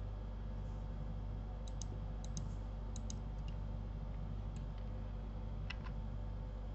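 Scattered clicks of a computer mouse and keyboard, several in quick pairs, over a steady low hum.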